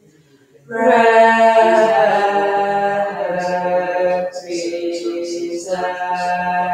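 Unaccompanied Byzantine liturgical chant in Greek Orthodox worship: after a brief pause, voices sing a slow, melismatic melody over a steady low held note.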